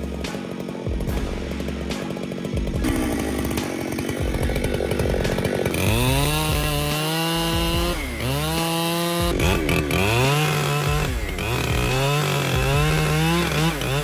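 Large chainsaw cutting into a big tree trunk. From about six seconds in, the engine revs up again and again, its pitch rising and dropping back. Background music with a steady bass beat plays underneath.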